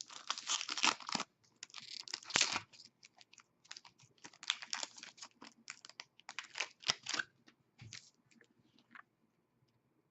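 Hockey trading cards being handled and slid against one another, a quick run of short papery scrapes and clicks that thins out near the end.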